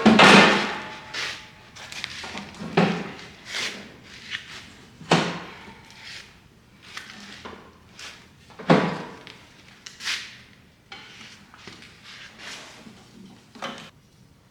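Clunks and knocks of a MIG welder being handled and set onto a steel welding cart, one loud clunk at the start and then several more, a few seconds apart.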